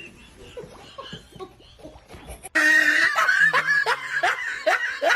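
A person laughing in a burst of repeated falling 'ha' sounds, starting suddenly about halfway through after a quieter stretch.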